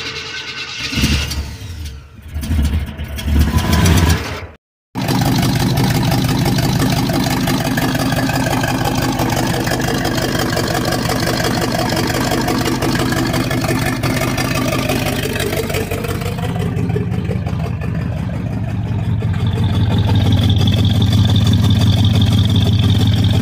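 Small-block Chevy V8 in a 1968 Chevrolet Caprice being started for the first time after its install: for a few seconds it catches unevenly and revs in surges, then after a brief break it runs steadily, growing louder near the end.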